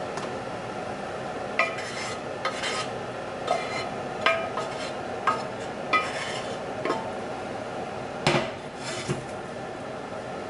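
A wooden spoon scraping and knocking inside a metal stockpot as cooked spaghetti is scraped out of it into a pot. About ten sharp knocks, each with a brief metallic ring, come at uneven intervals; the loudest is about eight seconds in.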